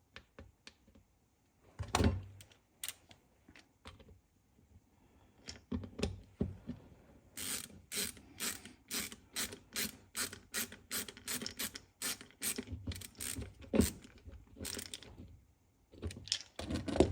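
Ratchet wrench clicking as it tightens the fasteners of a chainsaw's bucking spike, with a few metal knocks of tool and parts first. It settles into an even run of sharp clicks, about three a second, for several seconds, then stops.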